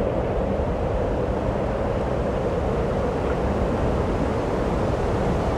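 Steady, even rumbling noise with a low hum running through it.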